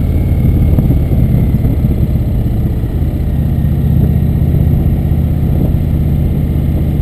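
Cruiser motorcycle engine running steadily while the bike is ridden.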